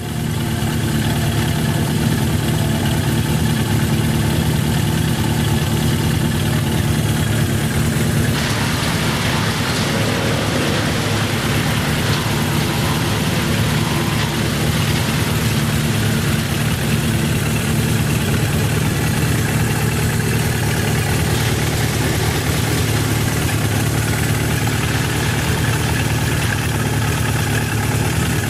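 Suzuki GS650G Katana's air-cooled inline-four engine idling steadily.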